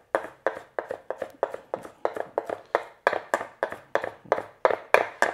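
Kitchen knife chopping fresh coriander on a wooden cutting board: quick, even knife strikes on the board, about four a second.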